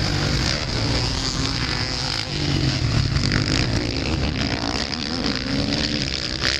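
Motocross motorcycle engines revving up and down as several bikes race over the dirt track, the pitch rising and falling with each throttle change.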